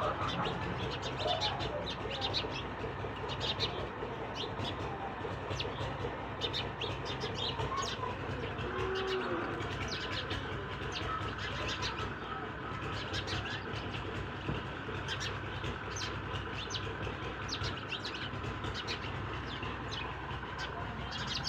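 Chickens in a yard: many short, high chirps at irregular intervals, with an occasional brief lower call, over a steady low background hum.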